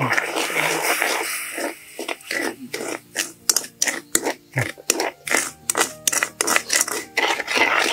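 A long-handled spatula scraping around a metal wok as white sugar is stirred into hot, darkened caramel syrup. After about two seconds of continuous scraping it settles into quick, even strokes, about four a second, before turning into a dense continuous scrape again near the end.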